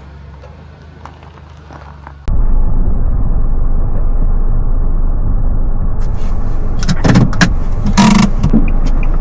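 Car driving: a softer low rumble at first, then a sudden jump about two seconds in to loud, steady road and engine rumble, with scraping and knocking noises over the last few seconds.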